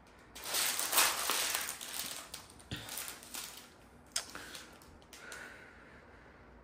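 Crinkling and rustling of a diamond painting canvas and its clear plastic cover film as it is slid and smoothed flat by hand, with a few sharp crackles, dying away after about four seconds.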